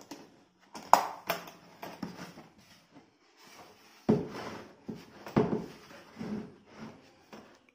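Hard plastic tool-case latches clicking open, two sharp clicks about a second in, then the case lid and the hammer drill and accessories inside being handled, with knocks of plastic on plastic about four and five and a half seconds in.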